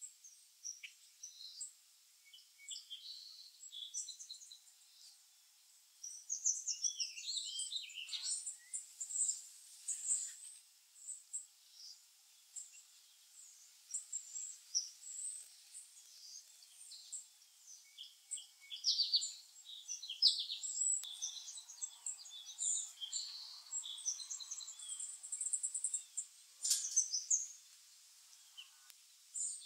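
Black-capped chickadees and other small songbirds chirping and twittering in short, high calls, many of them overlapping, busier from about six seconds in. A single sharp tap sounds near the end.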